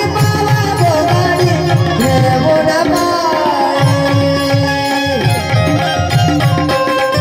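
Indian folk song performance: a woman singing with wavering, gliding pitch, accompanied by a rhythmic hand drum and the sustained twangy notes of a bulbul tarang. The drum drops back for a moment midway, leaving held notes, then picks up its beat again.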